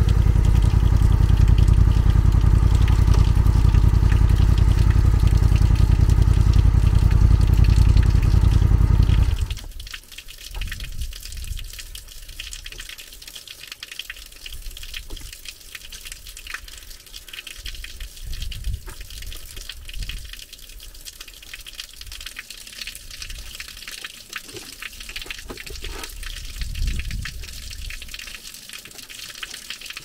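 Motorcycle running at steady road speed with heavy wind noise on the microphone, cutting off suddenly about nine seconds in. After that, water runs and splashes more quietly.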